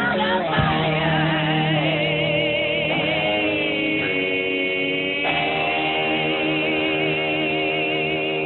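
Music with a singing voice holding long, wavering notes over sustained chords; the chord changes about five seconds in.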